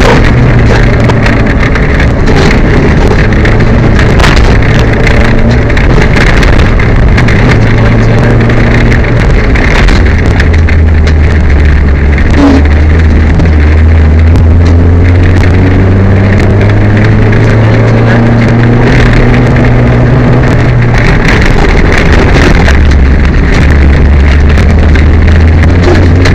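Peugeot 205 rally car engine driven hard on a special stage, its pitch stepping up and down with gear changes over steady road and wind noise, with many short knocks and clatters. The car is misfiring on this stage.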